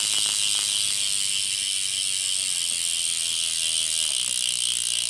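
Tree BMX rear hub freewheeling loudly: its three-pawl, two-row ratchet and 16-tooth racing-mod driver click so fast that they merge into a continuous buzz. The pitch sinks slightly at times as the wheel coasts.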